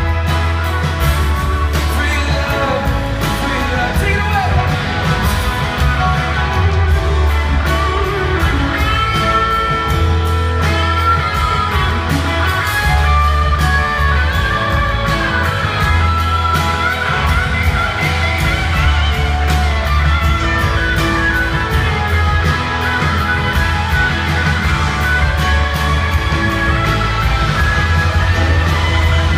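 A rock band playing live through a large outdoor PA: a steady drum beat, heavy bass and electric guitars.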